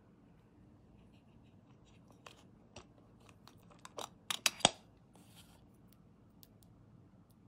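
Small plastic clicks and taps from an EarFun Air Pro 2 earbud charging case being handled: scattered light ticks, then a quick cluster of sharper clicks about four seconds in, the last the loudest, as an earbud is pulled out and the lid snaps shut. A brief rustle follows.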